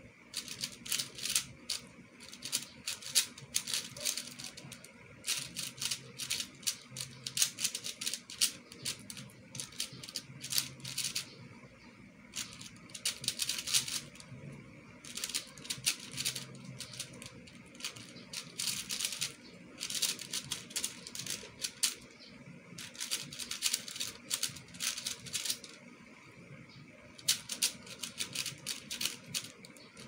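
Plastic QiYi speedcube being turned fast by hand: dense runs of rapid clicking and clacking from the turning layers, broken by short pauses every few seconds.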